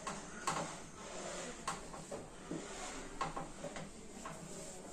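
Cloth wiping the underside of a kitchen chimney hood: light rubbing, with a few sharp knocks and taps against the hood.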